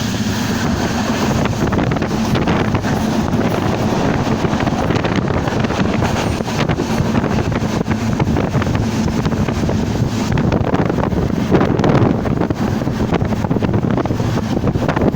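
The Banalata Express train running at speed: a loud, steady rush of train noise mixed with wind buffeting the microphone, with no build-up or fade.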